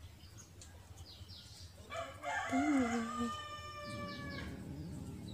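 A rooster crowing once: a long crow starting about two seconds in, ending on a drawn-out held note that lasts roughly two and a half seconds in all.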